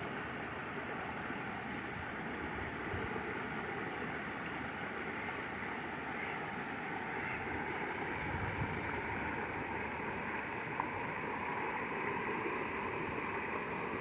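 Steady rush of water spilling over a low rock cascade into a pond.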